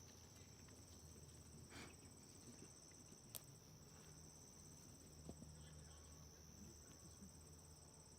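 Faint insects trilling in near quiet: a steady high whine with a higher pulsing trill over it that breaks off and resumes twice, and a single faint click a little over three seconds in.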